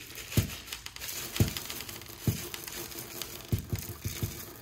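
Steel BBs pouring from a plastic container's spout into a hole drilled in a wooden mallet head: a scattered rattle with about half a dozen sharper clicks as they drop in.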